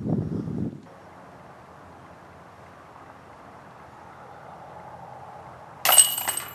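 A disc golf putt striking the steel chains of a basket: a sudden bright metallic jangle with ringing high tones near the end, the chains rattling as the disc goes in. Before it, a short low rumbling noise in the first second, then faint steady outdoor background.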